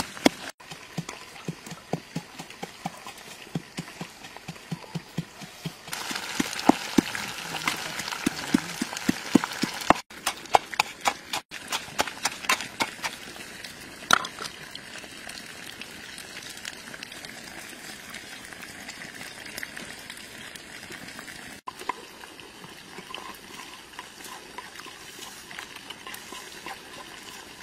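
Pestle pounding red chilies in a mortar: quick repeated knocks, a few a second, for about the first half. After that the pounding thins out to a few scattered soft knocks over a low steady hiss.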